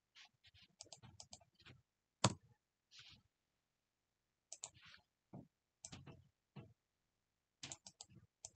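Faint, scattered clicks and key taps from a computer mouse and keyboard as commands are selected, copied and pasted between a browser and a terminal, with one sharper, louder click a little over two seconds in.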